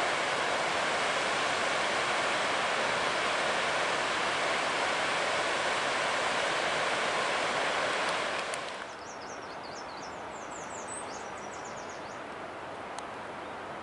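Freight cars rolling past, a steady rush of wheel and rail noise that cuts off abruptly about eight and a half seconds in. After that there is a quieter outdoor background, with a bird singing a quick run of high chirps for a few seconds.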